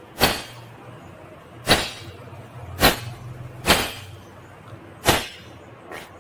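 Indian ringneck parrot giving five short, harsh screeches, roughly a second apart.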